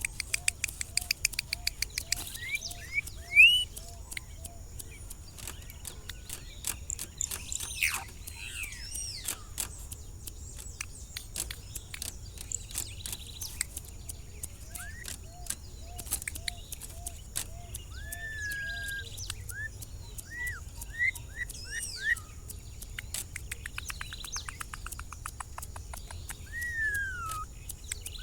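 Campo troupial (corrupião) calling in a varied string: whistled notes that rise and fall, two runs of short, evenly spaced low notes, quick rattling trills, and many sharp clicks.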